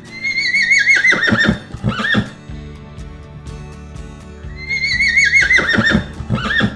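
A horse neighing twice, a few seconds apart, over background music. Each whinny starts high with a quavering pitch, then falls and breaks into shorter, lower pulses at its end.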